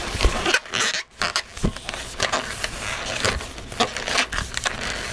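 Inflated latex twisting balloon (an orange 260) being handled and knotted, nozzle tied to tail into a loop: irregular short rubbing and scraping of rubber against rubber and gloved fingers.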